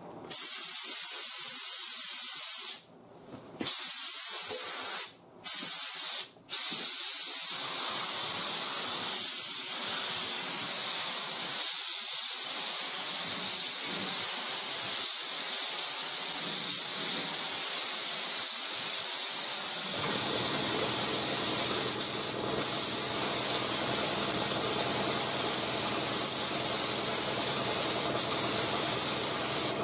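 Binks Model 7 siphon-cup spray gun with a 1.8 mm fluid tip spraying single-stage acrylic urethane paint at about 25 psi: a loud, steady hiss of air and atomized paint. The hiss breaks off briefly three times in the first seven seconds, between passes. About two-thirds of the way in, a steady low motor hum starts under the hiss.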